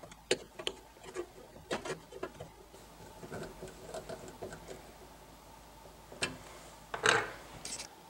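A screwdriver driving the screw that holds the metal light cover under an over-the-range microwave, with irregular sharp clicks and light scraping of metal on metal. A short scraping rattle comes near the end.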